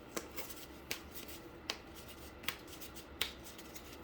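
Cardboard pieces being handled: soft rustling with five light, sharp clicks roughly three-quarters of a second apart.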